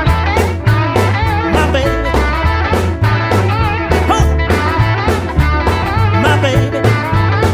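Recorded rockabilly-style rock song: electric guitar lead with bent notes over a pulsing bass line and a steady drum beat.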